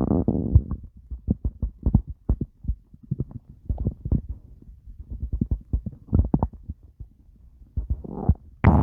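Human stomach growling, recorded up close. A rumble fades at the start, then comes a run of short, irregular gurgles and pops, and a louder, longer rumble starts near the end.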